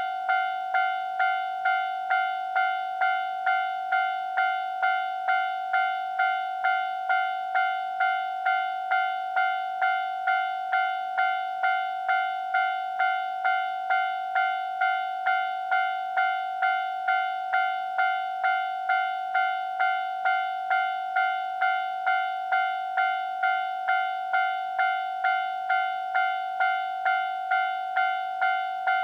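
Japanese level-crossing warning bell ringing, a clanging tone repeated about twice a second without a break: the alarm of a crossing with no barriers, warning that a train is coming.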